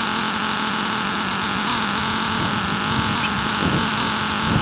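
Stihl "C" chainsaw with M-tronic electronic carburetion idling steadily after a cold start, chain brake on, while the M-tronic adjusts the fuel mixture by itself during its 60-second warm-up.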